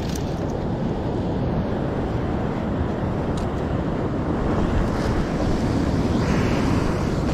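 Surf washing on the beach, with wind buffeting the microphone in a steady low rumble. A brief swell of hiss comes about six seconds in.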